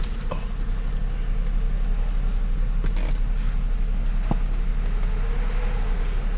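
Mercedes-Benz SLK 350's V6 engine idling steadily, with a few light clicks over it.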